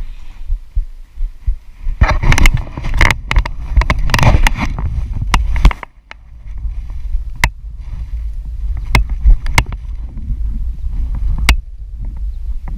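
Wind rumbling on the camera microphone, with handling knocks and water sloshing as a redfin pickerel is held and lowered into the river for release. The loudest part, from about two to nearly six seconds in, is a stretch of rough rustling and splashing. Single sharp clicks follow later.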